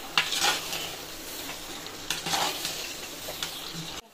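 Mutton pieces and masala sizzling in an aluminium pressure cooker while a metal slotted ladle stirs and scrapes the pan, with two louder stirring strokes: one just after the start and one about two seconds in.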